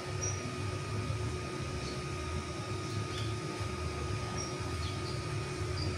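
Steady low room hum with a faint steady whine, and a few faint light ticks as a stepper-motor cable and its small plastic connector are handled at the control board.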